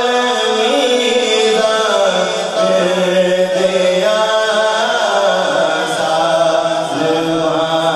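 A male voice singing a naat unaccompanied, in long held notes that slide and step from one pitch to the next.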